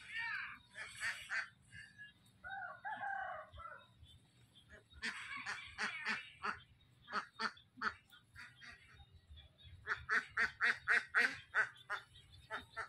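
Domestic ducks quacking in scattered calls, then a rapid run of about five short quacks a second near the end.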